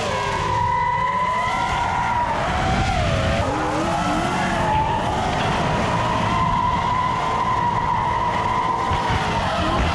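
High whine of a racing drone's propellers, mostly steady but dipping in pitch for a moment about three and a half seconds in. Under it is the engine and tyre noise of a V8-swapped BMW E36 drifting on smoking tyres.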